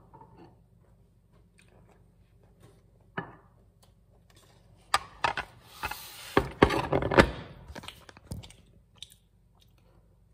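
A ceramic dinner plate knocking and scraping on a glass stovetop, with rubbing and knocks from the camera being handled. The sounds are scattered clatters, busiest about five to seven seconds in.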